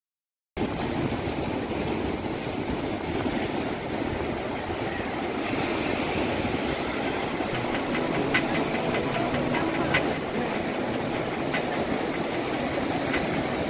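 Steady rush of sea surf breaking on a rocky shore, starting suddenly about half a second in.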